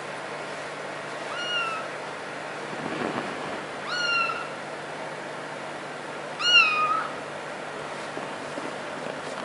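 Kitten mewing three times, thin, high-pitched calls about half a second each that rise at the start and dip at the end. The third mew is the loudest and longest.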